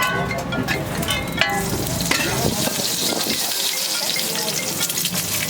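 Food sizzling in hot oil on a street-food griddle, a steady hiss that swells about two seconds in. In the first second and a half there are several sharp metallic clinks.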